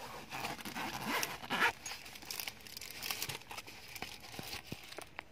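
A zippered fabric document pouch being unzipped and handled, with the papers in plastic sleeves inside rustling and crinkling, and a few light clicks in the second half.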